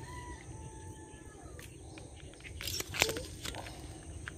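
Rural outdoor ambience: steady high insect buzzing and low wind rumble on the microphone, with a faint whistled bird call in the first second. About three seconds in comes a brief, louder burst of rustling and clicks.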